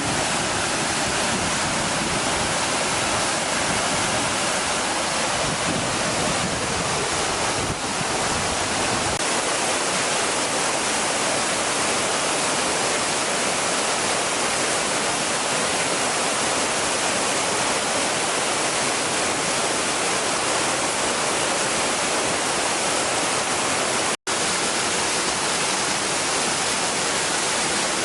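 Waterfall rushing: a steady, dense roar of falling water. It cuts out for a split second near the end.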